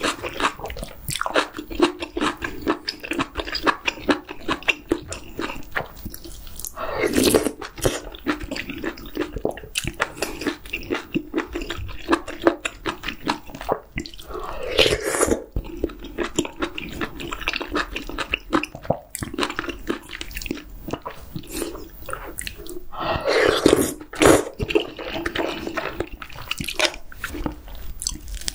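Close-miked eating: wet chewing of octopus and chewy jjolmyeon noodles from a spicy hot pot, a steady run of small smacks and clicks. Three times, about eight seconds apart, a louder, longer slurp of noodles and broth.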